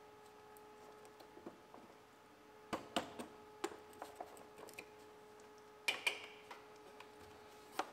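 Faint plastic clicks and taps as sand-clogged electrical plugs are pried off headlight bulbs with the edge of trim clip pliers, in two small clusters about three and six seconds in. A faint steady hum runs underneath.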